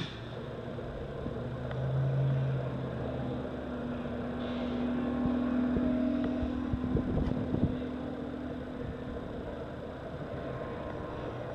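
Steady engine rumble, with a deeper hum swelling about two seconds in and a higher hum held from about three to nine seconds in, and a few knocks around seven seconds in.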